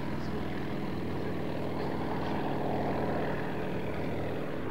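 Yak-52's nine-cylinder Vedeneyev M-14P radial engine and propeller droning steadily as the aircraft flies.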